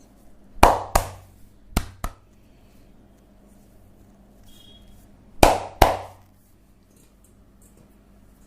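Sharp hand strikes of percussive massage on the body: six slaps in three quick pairs, two pairs close together near the start and one more about halfway through.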